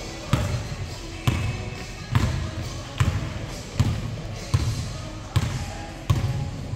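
Basketball being dribbled on the court: eight bounces at a steady pace of about one a second.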